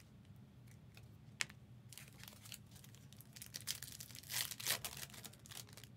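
Trading-card pack wrapper crinkling and cards rustling as they are handled, with one sharp tap about a second and a half in and a louder stretch of rustling about four and a half seconds in.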